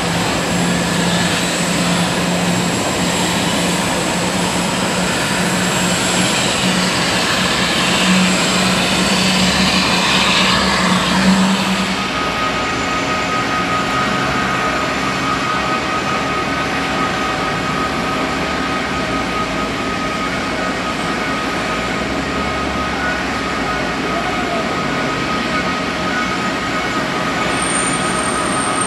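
Steady, loud apron noise around a parked Airbus A380: a continuous mechanical hum with a low steady tone, which changes abruptly about twelve seconds in to a different steady hum with a thin high whine.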